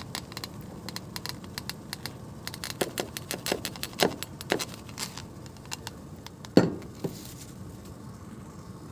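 A run of small clicks and light knocks, several sharper ones coming in a cluster a few seconds in and the loudest single knock about six and a half seconds in.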